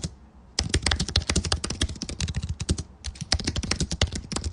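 Computer-keyboard typing sound effect: rapid keystroke clicks at about ten a second, pausing briefly near the start and again about three seconds in.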